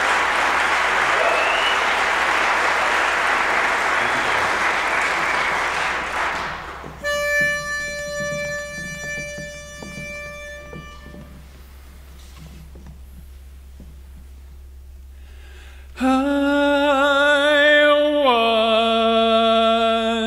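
Audience applauding, fading out about six seconds in. Then a pitch pipe sounds one held note for about four seconds. Near the end a barbershop quartet starts singing a held a cappella chord, which steps down to a lower chord about two seconds later.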